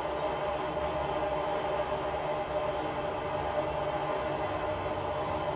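Steady rush of falling water from Niagara Falls: an even, unbroken noise that holds at one level throughout, heaviest in the low and middle range.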